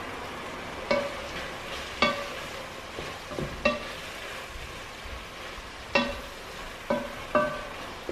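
Minced meat sizzling in a pot as it is stirred with a spoon that knocks against the pot about six times, each knock ringing briefly over the steady sizzle.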